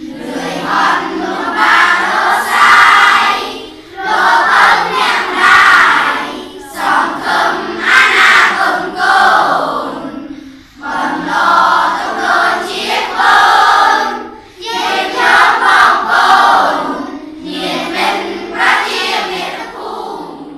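A class of schoolchildren chanting a Khmer poem in unison in a sing-song recitation melody (the Pum Noul poetic metre). The chant goes line by line, with short breaks for breath every few seconds.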